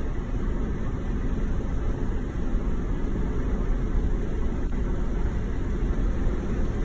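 Steady low rumble of road and engine noise heard inside a car's cabin while driving.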